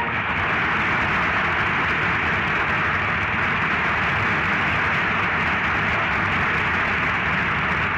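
Studio audience applauding steadily, heard on an old 1951 radio broadcast recording.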